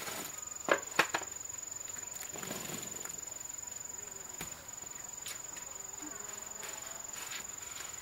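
Steady high-pitched insect trill, with two sharp knocks about a second in and some rustling as a woven bamboo basket is handled.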